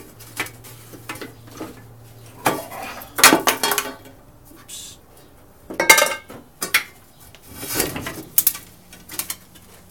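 Metal oil drain pan clanking and ringing as it is set and shifted on the floor, with knocks as the lawn mower is tipped onto its side to drain its oil. The loudest clanks come about three seconds in and again about six seconds in.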